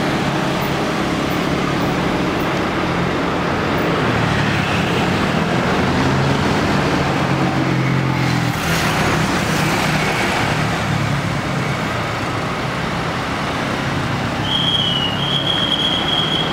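Scania K410 coach's inline-six diesel engine running at low revs as the bus manoeuvres, with passing traffic. A short burst of hiss comes about halfway through, and a high steady tone starts near the end.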